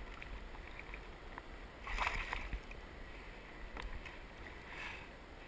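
Water splashing and sloshing against a kayak hull as a hooked bass thrashes at the surface beside the boat. The loudest splash comes about two seconds in, with a few faint clicks.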